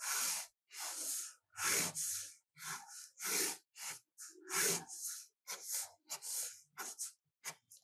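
Felt-tip permanent marker drawing straight lines on paper: a series of short scratchy strokes, about two a second.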